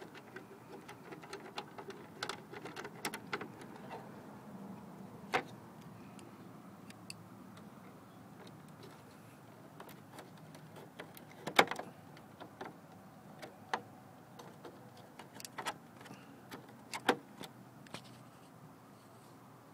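Scattered light clicks and taps of a 3/8-inch socket wrench and its socket against the plastic housing of a Verizon Fios optical network terminal as the access panel nut is worked loose. There are two louder knocks, one a little past halfway and one near the end.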